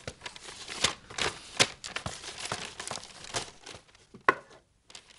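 Papers rustling and crinkling with irregular sharp clicks and taps, as documents are handled and rummaged out of a wooden box; the sounds thin out near the end.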